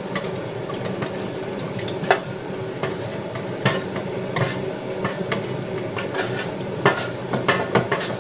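A spatula scraping roasted marrow pieces off a metal baking tray into a plastic food processor bowl: irregular scrapes, clinks and knocks, with a steady low hum underneath.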